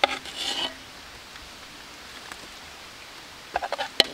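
Serving spoon clinking against dishes: a few sharp clicks near the end over a steady hiss, with a brief voice-like sound at the start.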